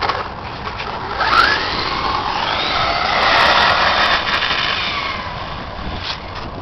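Brushless electric motor of a 36-volt RC truggy whining as it accelerates away, its pitch rising quickly, then fading as the truck drives off into the distance.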